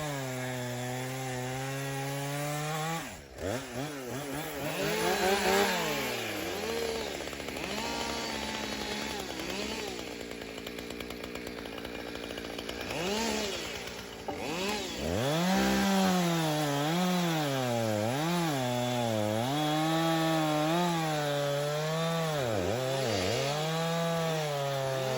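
Chainsaw running under load while cutting wood, its engine pitch dipping and rising again and again as the chain bites. Through the middle it settles to a lower, steadier note, then climbs back into the wavering cutting pitch a little past halfway.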